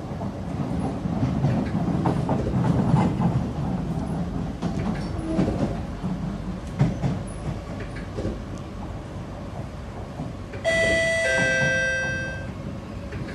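Running noise inside a Kawasaki–CSR Sifang C151B metro train's carriage: a steady rumble with scattered knocks from the wheels on the track. Near the end, a two-note chime, a high note then a lower one, rings out on the train's speakers: the signal before a station announcement.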